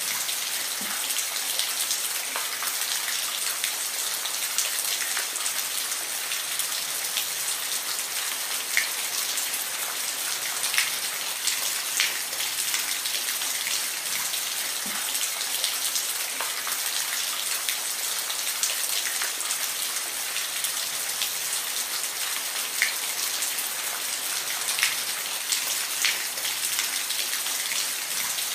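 Steady rain falling, a constant hiss with scattered individual drop ticks.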